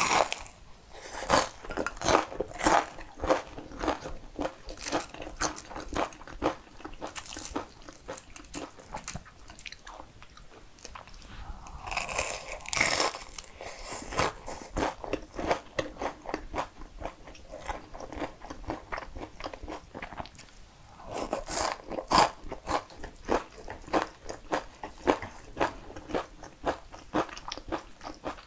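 Close-miked eating: crisp, crunching bites and chewing of a breaded, deep-fried cheese pork cutlet, then slurping and chewing of cream-sauce spaghetti about twelve seconds in.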